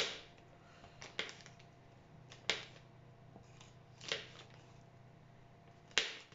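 A knife cutting butter into small cubes, each cut ending in a sharp tap on the surface underneath: about six irregular taps, roughly one a second.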